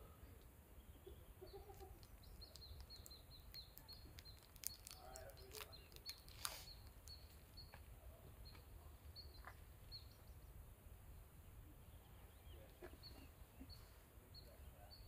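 Quiet outdoor ambience with a low rumble, in which a bird gives short high chirps, several a second for a few seconds and then now and then. A couple of sharp taps stand out near the middle.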